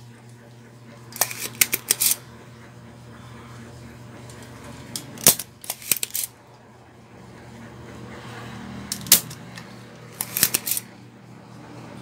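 Sharp clicks and taps in four short clusters, from tools working a circuit board while a capacitor is desoldered with a soldering iron, over a steady low hum.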